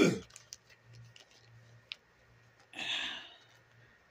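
Small clicks and rubbing of a doll and its tight boot being handled while a foot is worked out of the boot, with a short loud rush of noise at the very start and a breathy exhale about three seconds in.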